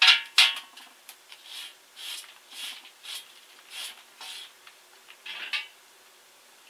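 Scratchy scraping strokes on a welded steel frame: three loud scrapes at the start, then a run of softer strokes about two a second.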